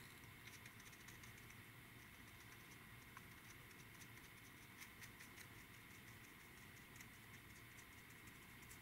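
Near silence: faint room tone with a steady high hum and scattered faint ticks.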